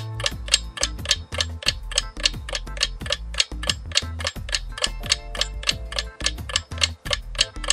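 Clock-like ticking of a countdown timer sound effect, about three ticks a second, over low bass background music.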